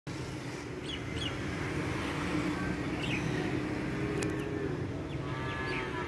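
Steady hum of distant traffic with birds chirping now and then, a few short chirps over the six seconds.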